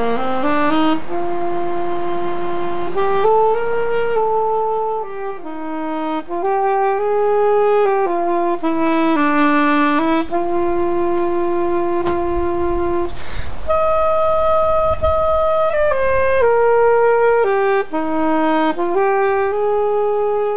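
Solo saxophone playing a slow Christmas melody, one held note after another with slides between some of them. A brief low rumble sits under it about twelve seconds in.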